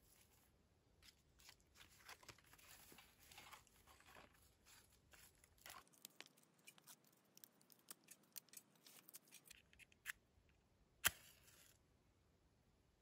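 Faint, irregular clicks and scrapes of small objects being handled, with one sharper click a little before the end.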